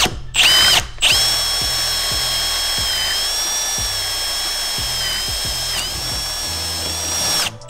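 Power drill boring the lock hole through a door with a Forstner bit. Two short trigger bursts, then a steady run of about six seconds with a high whine that dips briefly under load before it stops.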